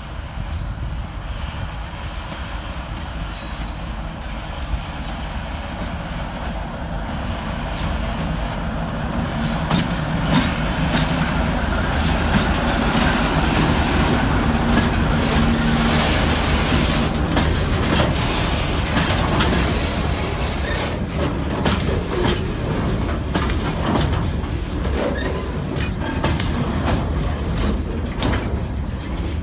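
ChME3 diesel shunting locomotive approaching and passing at low speed, its six-cylinder diesel engine running, loudest about halfway through. After it, loaded open freight wagons roll past, their wheels clicking sharply and repeatedly over the rail joints.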